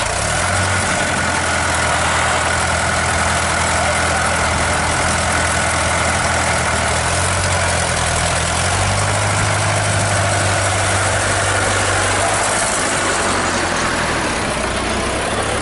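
Old tractor's engine running steadily at low revs as it pulls a loaded passenger trailer, with a deep even hum under a broad hiss.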